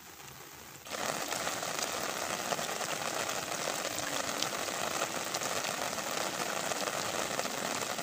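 Heavy rain falling steadily on a pond's surface, an even hiss with faint patter. It grows abruptly louder about a second in.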